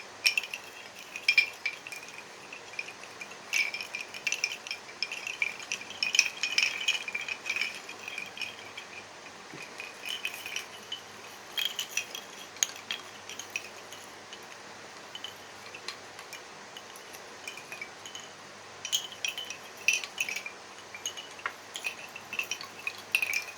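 Handmade goddess and crescent moon wind chime clinking and rattling in irregular bursts as its tangled strings are worked loose by hand, with a quieter lull past the middle.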